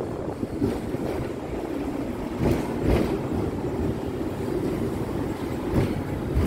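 Hong Kong double-decker electric tram running along its tracks: a steady rumble of wheels on rail with a few sharp knocks, and wind on the microphone.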